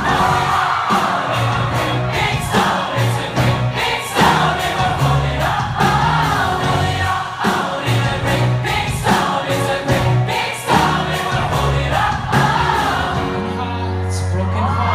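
Live band playing with a steady drum beat and bass while a large concert crowd sings along in unison, like a choir.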